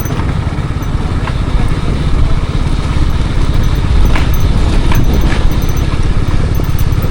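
Motorcycle engine running steadily under way, a continuous low rumble with road and wind noise over it.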